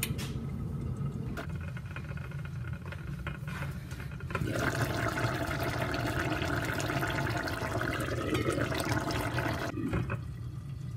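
Peanut-and-amaranth stew simmering in a stainless pot, bubbling with small pops, louder from about four seconds in until near the end.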